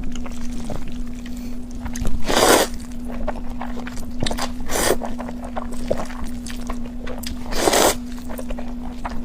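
Eating noises from a spicy noodle mukbang, with three louder noisy slurps or mouthfuls, about two, five and eight seconds in, and smaller clicks between them. A steady low hum lies under it all.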